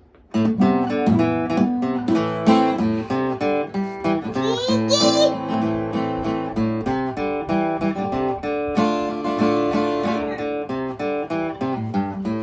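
Acoustic guitar starting a folk-song intro about half a second in, chords changing steadily.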